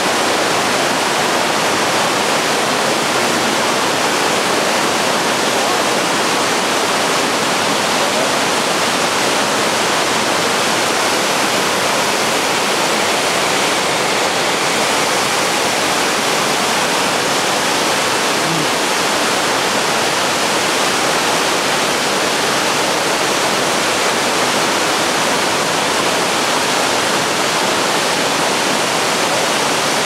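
Fukiware Falls, a broad curtain of water pouring over a rock ledge, making a loud, steady rush of falling water.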